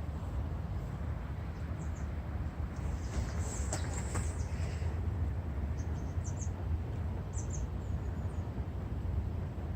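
Outdoor ambience with a steady low rumble and a few faint, short, high bird chirps scattered through it.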